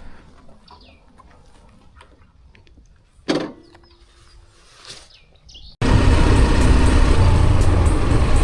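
Faint bird chirps and one sharp knock a little over three seconds in. Then, near the end, loud engine and wind noise of a moving vehicle cuts in abruptly.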